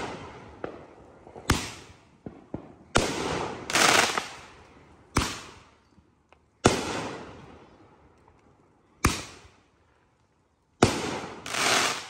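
Aerial fireworks bursting overhead: about six sharp bangs a second or two apart, each trailing off. A couple of the bursts are followed by a longer crackling fizz from glittering stars.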